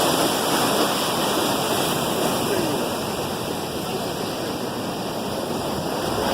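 Ocean surf breaking and washing below, a steady rushing noise.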